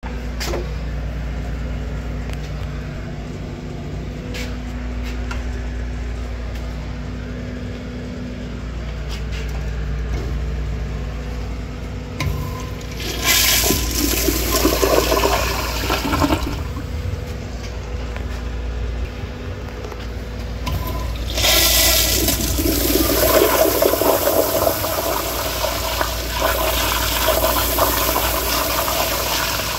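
Crane Whirlton toilet flushing, water rushing and swirling into the bowl and down the drain. A first rush starts about 13 seconds in and fades after a few seconds; a second, longer rush starts about 21 seconds in and keeps going. Before the first rush there is only a steady low hum.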